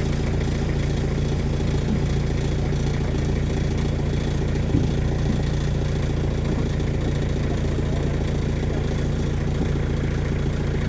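An engine running steadily at an even idle, with one short knock about five seconds in.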